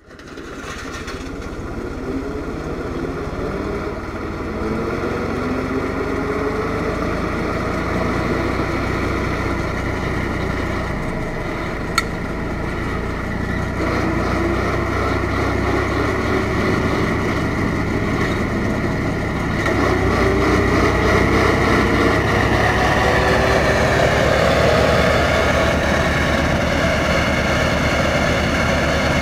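Deutz-Fahr Agroplus 315 tractor's diesel engine running steadily while it drives a rotary mower through tall grass. The sound fades in at the start and gets louder about twenty seconds in, with a single sharp click about twelve seconds in.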